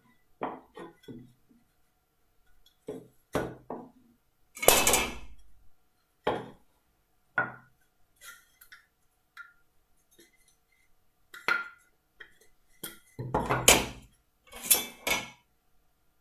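Irregular knocks of marking-out tools and wooden pieces being handled and set down on a workbench, the loudest about five seconds in and a quick cluster near the end.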